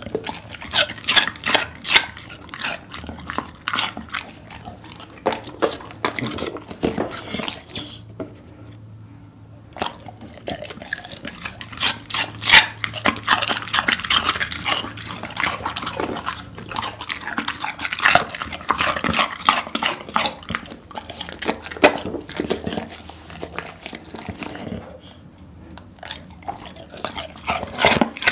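A golden retriever crunching and chewing raw cucumber in rapid, close-up bites, in two long spells broken by a short pause about eight seconds in and another near the end.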